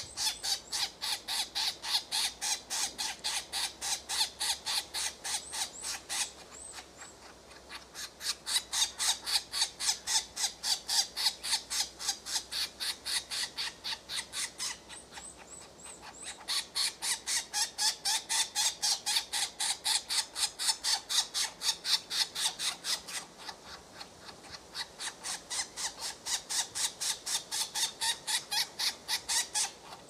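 Green woodpecker nestlings begging from the nest hole while an adult feeds them: a rapid, even series of harsh calls, about four a second, in bouts of about six seconds broken by short pauses.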